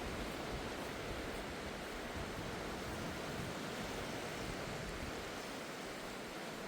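Steady rushing noise of surf washing on a sandy beach, without any distinct breaks or knocks.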